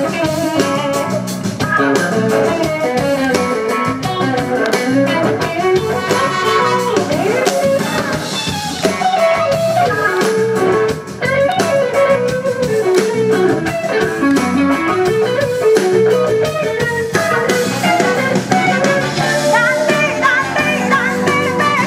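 Live soul band playing an instrumental passage: an electric guitar lead over drums, bass and keyboards.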